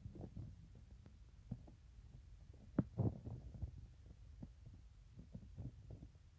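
Ginger cat purring, a low rhythmic throb, content while it is scratched under the chin. Two soft knocks come close together about three seconds in.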